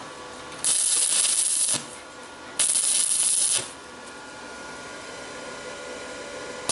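Two tack welds with a V8 Brasil inverter stick welder: the electrode arc burns twice on steel, each burst about a second long, a second apart.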